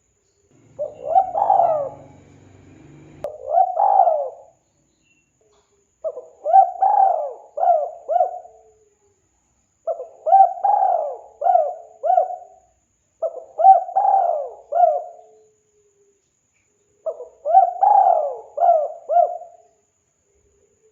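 Spotted dove cooing: five phrases of three or four hoarse coos each, repeated every three to four seconds. A faint low rumble sits under the first phrase.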